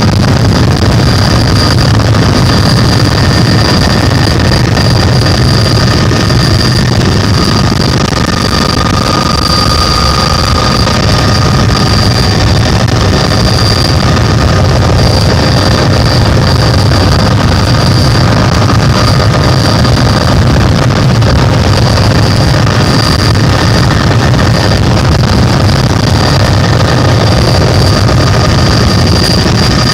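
Helicopter running steadily: a loud, even rumble with a steady high whine above it.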